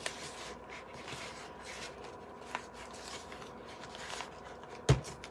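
Spackle being stirred in a plastic tub with a stick: faint scraping and rubbing, with a couple of light clicks. Near the end there is a single thump, the loudest sound.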